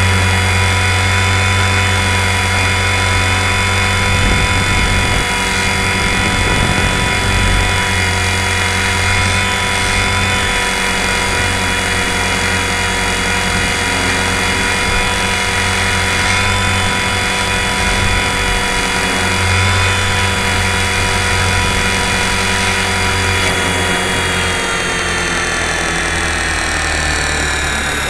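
Electric RC helicopter (Align T-Rex 450 Sport) heard up close from a camera mounted on it: steady whine of its brushless motor and gears over a low rotor hum. The pitch sinks over the last few seconds as the rotor slows.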